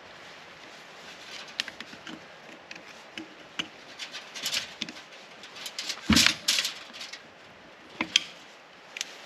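Hand tools and metal parts clinking, knocking and scraping during work on an old rusted strut assembly, as irregular sharp clicks and short scrapes. The loudest knocks come about six seconds in, with another sharp knock about two seconds later.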